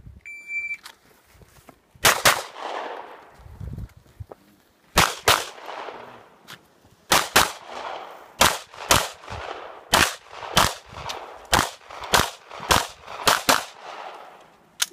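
A shot timer's electronic start beep sounds once, then a pistol fires about seventeen shots over the next thirteen seconds, mostly in quick pairs with short pauses between them.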